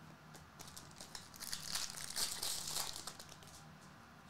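Glossy hockey trading cards slid over one another in the hands: a quiet papery rustle with small clicks, swelling in the middle and then dying away.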